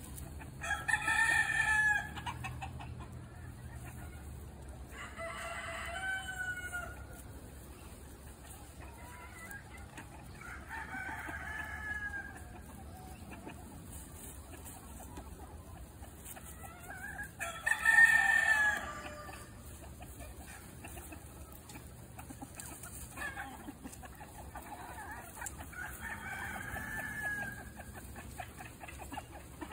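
Chickens calling, about six drawn-out calls spaced several seconds apart, the loudest about eighteen seconds in, over a faint steady background.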